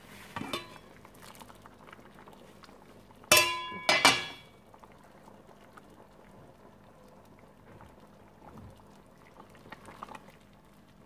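Metal pot lid lifted off and set down with two ringing clanks about three and four seconds in. After that, lentils bubble at a boil in the pot, and a ladle stirs them near the end.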